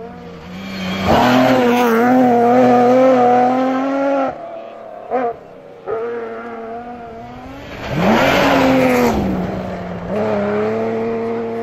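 Rally car engines at high revs under full throttle, passing one after another. The first holds a steady high note and cuts off sharply as the driver lifts about four seconds in. Another rises and then falls in pitch as it goes by, and a third holds high revs near the end.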